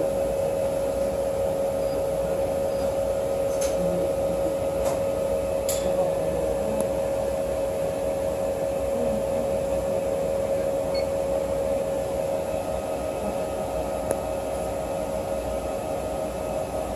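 Steady machine hum of a running wafer prober, a constant mid-pitched tone over an even whir, with a few faint clicks around four to six seconds in and once more near fourteen seconds.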